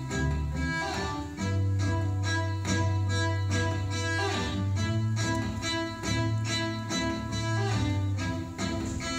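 Cello instrumental passage built up with a loop pedal: long, low bowed notes held under several layered higher lines, moving with a steady rhythmic pulse.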